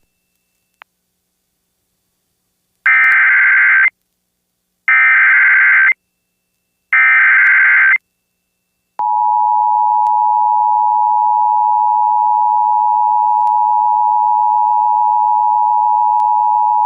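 Emergency Alert System activation for a flash flood warning. Three one-second bursts of screeching SAME header data, about two seconds apart, start about three seconds in. From about nine seconds in comes the EAS two-tone attention signal, a steady, harsh dual tone.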